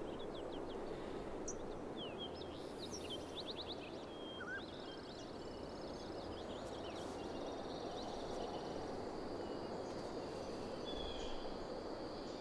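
Woodland ambience: a steady soft hiss with scattered high, quick bird chirps and a short trill, most of them in the first half.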